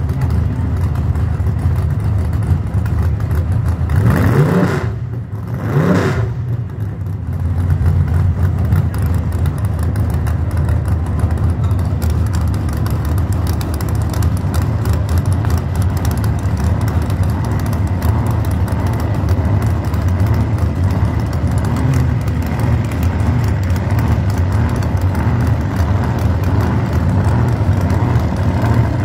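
Vintage front-engine dragster's engine running with a steady low rumble, blipped twice with quick rising revs about four and six seconds in.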